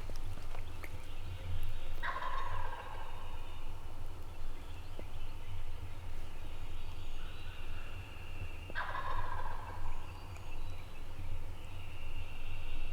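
Wild turkey gobbler gobbling twice, about seven seconds apart, each gobble lasting about a second and a half.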